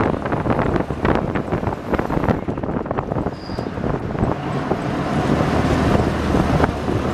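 Army Duck amphibious truck driving on land, heard from an open-sided passenger seat: its engine runs steadily under heavy wind buffeting on the microphone.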